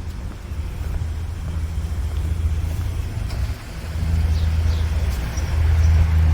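A motor vehicle's engine running close by on the street, a low steady sound that grows louder in the last two seconds or so.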